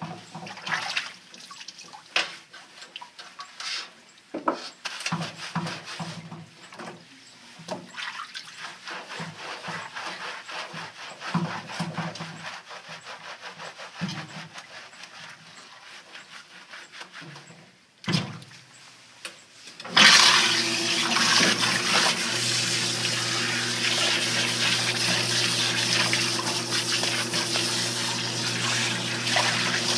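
Hands scrubbing a wet, lathered standard poodle coat: irregular wet rubbing and scuffing. About twenty seconds in, a recirculating bathing system starts and water sprays steadily onto the coat over a steady pump hum.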